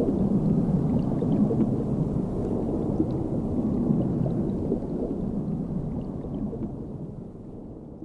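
Production-logo sting: a deep, low rumbling sound effect that fades out over the last few seconds.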